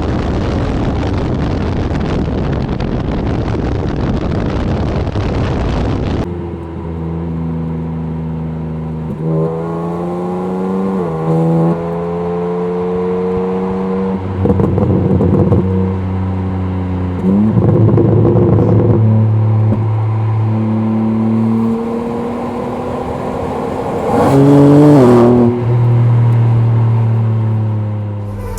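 A car's exhaust recorded close up from a microphone taped just above the tailpipes, with the car under way. For about the first six seconds a dense rush of wind buffeting the microphone covers everything. After that the engine note comes through clearly, holding steady and then rising and dropping in pitch several times as the car accelerates and eases off. It is loudest near the end.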